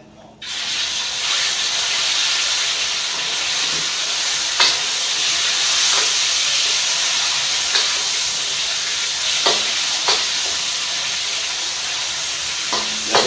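Diced chicken sizzling loudly as it hits hot oil in a stainless steel wok, the sizzle starting suddenly about half a second in and holding steady. A metal spatula clicks against the wok now and then as the chicken is stirred.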